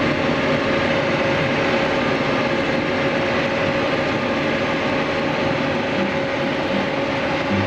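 John Deere 4830 self-propelled sprayer running steadily, heard from inside its cab: an even mechanical hum with a steady whine through it.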